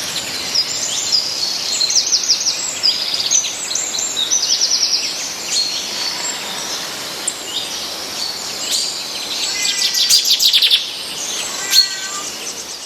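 Songbirds chirping and trilling in quick series of repeated notes over a steady background hiss, with a denser burst of rapid notes about ten seconds in.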